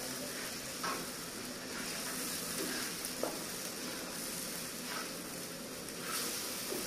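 Thick spiced gravy sizzling in a black kadhai as a perforated steel spoon stirs it, with a few light knocks of the spoon against the pan.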